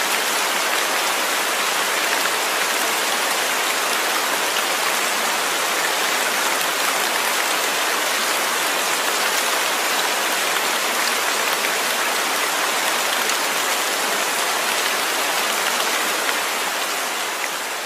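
Steady recorded rain, an even hiss flecked with faint patter, the masking track laid over a subliminal audio. It begins to fade out near the end.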